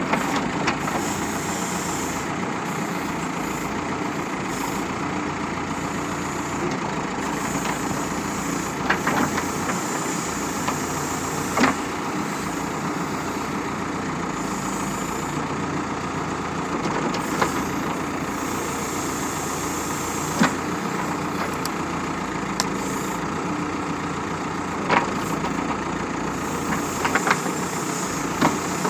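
Backhoe loader's diesel engine running steadily while the backhoe arm digs a shallow trench, with a few short sharp clanks from the bucket and arm scattered through.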